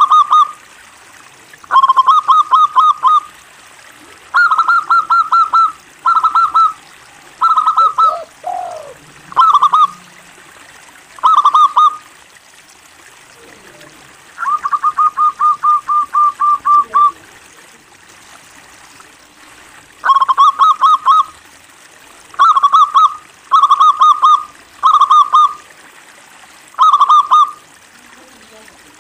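Zebra dove (local perkutut) singing: about a dozen short bursts of rapid trilled cooing with pauses between, including one longer, evenly pulsed trill in the middle.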